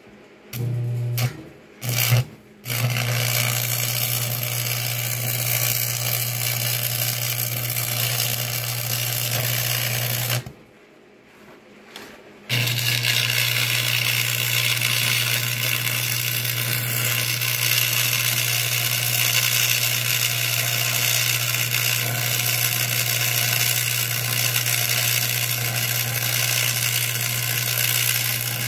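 Stick (arc) welding: two short arc strikes in the first couple of seconds, then a steady crackle over a low hum that breaks off for about two seconds near the middle before the arc is struck again and runs on.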